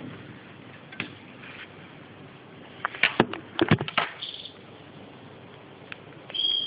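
A quick cluster of sharp clicks and knocks about three seconds in, the handling noise of a phone camera being moved and set down, followed near the end by a short high steady tone.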